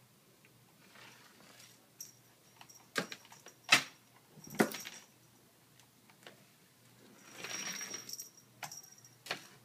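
Cat clawing at a sisal-rope scratching post hung on a door: a few sharp knocks as the post and door are jolted, then a rustling, metallic rattle near the end.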